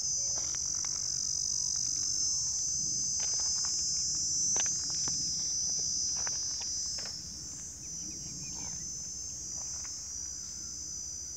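A steady, high-pitched chorus of insects, with scattered faint clicks and a low rumble beneath.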